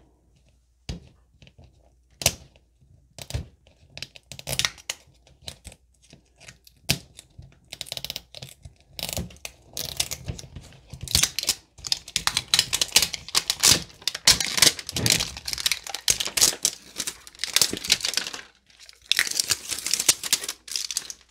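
Plastic shrink wrap being picked at with a fingernail and peeled off a plastic toy bottle. Scattered scratches and clicks come first, then dense crinkling and tearing from about eight seconds in, with a brief pause near the end.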